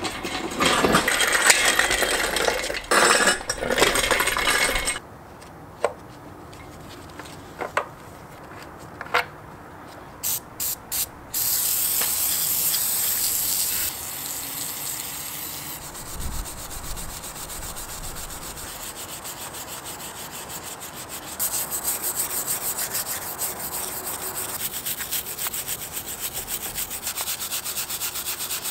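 An aerosol spray can of cleaner hisses in three short taps and then in a steady spray onto a Honda B-series engine block. A stiff brush then scrubs the wet, greasy block in fast, even back-and-forth strokes. Loud clattering and knocks come in the first few seconds.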